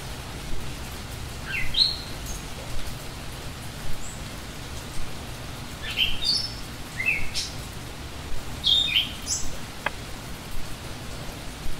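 Small songbirds chirping, a few quick sweeping calls in three bursts, over a steady hiss of outdoor noise.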